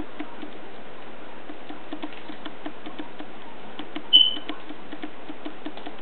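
Blue-and-gold macaw nibbling a cookie held in its foot: small crunches from its beak, several a second. A single short high squeak about four seconds in.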